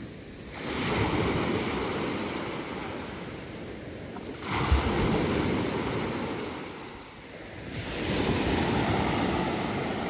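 Mediterranean surf: waves breaking on the beach and washing back in three swells about four seconds apart, with some wind on the microphone.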